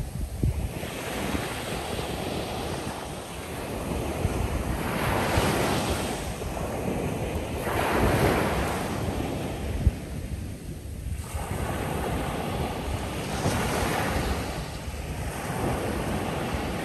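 Ocean surf breaking on the shoreline, a wash of noise that swells and fades several times, a few seconds apart, as waves come in and draw back. Wind buffets the microphone with a low, uneven rumble underneath.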